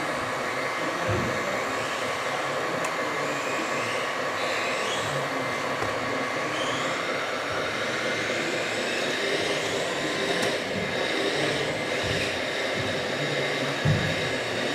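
Steady electric whirring of a radio-controlled MAN 8x8 hooklift truck's hydraulic pump and drive, running as the hook arm lowers the container onto the bed. A short low knock comes near the end.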